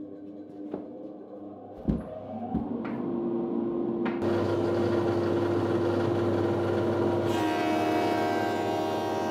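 Woodworking machinery running steadily, with a couple of knocks about two seconds in. It gets louder about four seconds in. Near the end a Jet 12-inch combo jointer/planer runs as a board is fed into its thicknesser.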